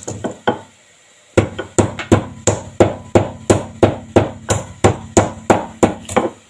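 Wooden pestle pounding green cardamom pods in a wooden mortar, crushing them to powder: a few knocks, a short pause of under a second, then a steady run of about three strikes a second.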